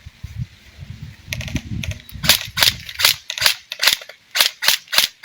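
Airsoft rifle firing single shots in a steady string, about two to three sharp cracks a second, starting about two seconds in. Before the shots, a low rumbling noise on the microphone.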